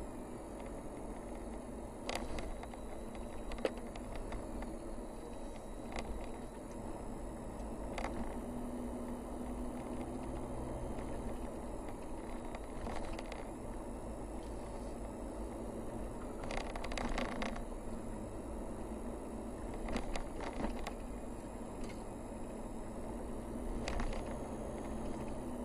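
Toyota car driving along a narrow paved road: steady engine and tyre hum, with occasional short clicks and rattles scattered through it.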